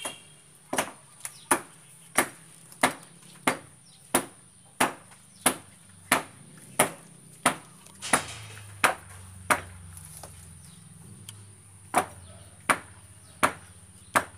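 Rhythmic striking blows, about three every two seconds, each sharp and evenly spaced. They stop for a couple of seconds about two-thirds of the way through, then resume.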